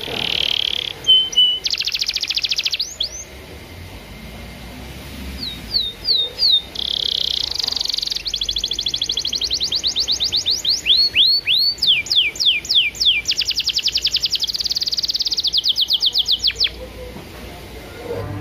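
Domestic canary singing a long song of rapid rolling trills and repeated downward-sweeping whistle notes, with a short pause a few seconds in and a long unbroken run of song after that. It is the kind of full, long-running canary song that is played to prompt other canaries to start singing.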